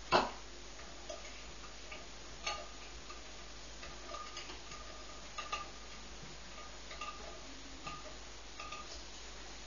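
Irregular metallic clicks and ticks from a Bialaddin T10 paraffin pressure lamp being handled at its stem, over a faint steady hiss; one sharp, louder click right at the start.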